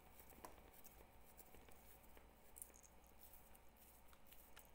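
Near silence, with faint soft rustling and a few light ticks from a hand pressing and breaking up crumbly poha murukku dough in a stainless steel bowl.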